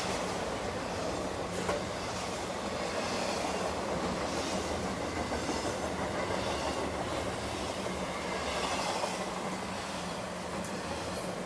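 Intermodal freight train's cars rolling past close by: a steady rumble of steel wheels on rail, with a high hiss of wheel noise that swells and fades every second or two.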